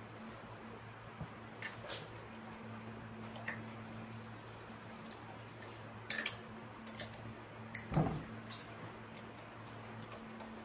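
Scattered small clicks and clinks of metal engine parts and hand tools being handled, over a steady low hum. A duller, louder knock comes about eight seconds in.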